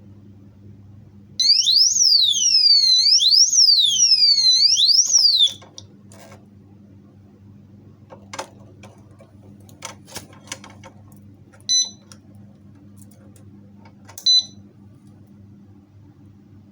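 Motorcycle disc-lock alarm sounding its electronic siren, a loud wail that sweeps up and down in pitch for about four seconds and then cuts off. Afterwards come a few light clicks and two short high beeps a couple of seconds apart.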